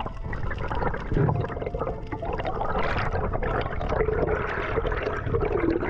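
Water heard through an underwater camera: a dense bubbling, sloshing rush with many small crackles. A wavering low tone comes in about four seconds in.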